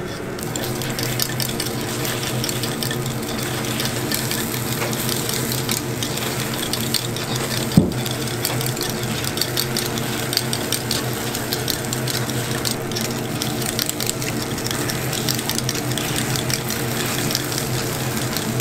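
Takoyaki batter sizzling and crackling in a hot takoyaki griddle over a steady low hum, with one sharp knock about eight seconds in.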